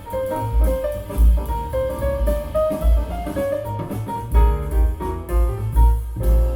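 Recorded music with a drum kit, bass and piano, reproduced by KEF R11 Meta floorstanding loudspeakers driven by a Hegel H600 amplifier and picked up by a microphone. Heavy bass beats recur under a stepping melody line.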